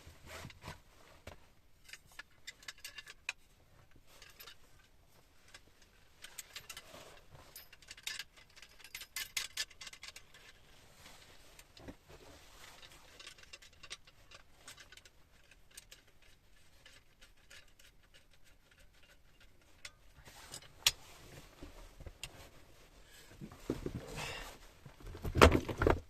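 Scattered small clicks, taps and rustles of objects being handled, with a few louder knocks and a heavy thump near the end.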